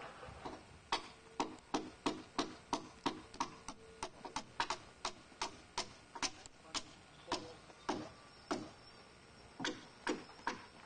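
Hammer driving nails into timber framing: a long run of quick, even blows, about three a second, each with a short ring, pausing briefly near the end before starting again.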